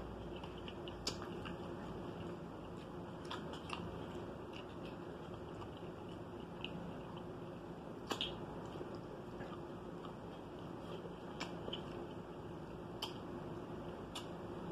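Close-up mouth sounds of a person eating turkey tails by hand: chewing and biting meat off the bone, with a soft wet click or smack every second or two over a faint steady hum.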